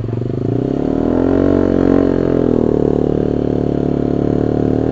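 Honda CB150R motorcycle's single-cylinder engine pulling away: the revs rise over the first two seconds, dip briefly, then hold steady as the bike cruises.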